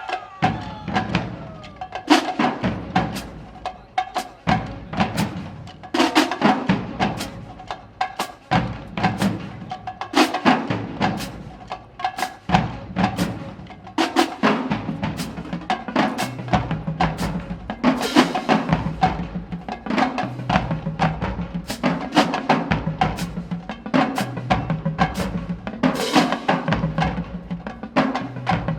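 Marching band drumline playing a drum cadence: a steady run of snare and tenor drum strikes with sharp stick clicks, over pitched bass drums sounding in turn.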